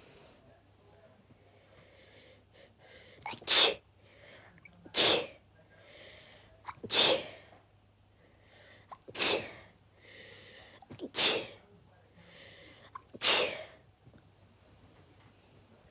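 A person in a sneezing fit, sneezing six times in a row about every two seconds, each sneeze preceded by a fainter drawn-in breath.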